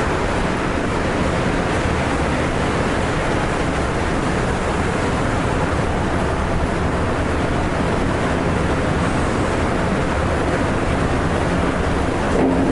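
Steady rushing roar of Kegon Falls, a 97-metre waterfall, heard as a loud, even noise without break.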